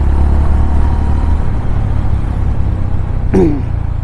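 KTM Duke 390's single-cylinder engine running as the motorcycle rides off, a steady low drone with road and wind noise over it.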